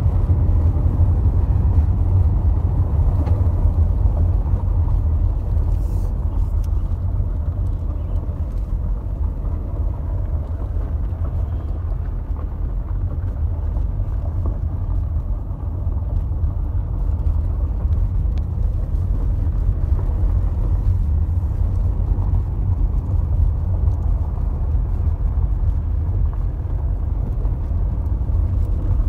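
Car driving along an unpaved forest road, heard from inside the cabin: a steady low rumble of engine and tyres on the dirt surface.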